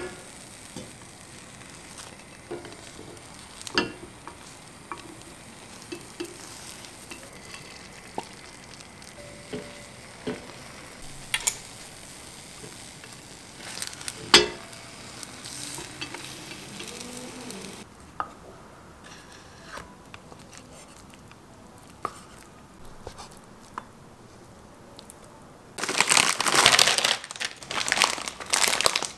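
Beaten egg sizzling in a rectangular tamagoyaki pan, with sharp clicks of chopsticks against the pan as the omelette is rolled. Near the end, a packet crinkles loudly as it is handled and opened.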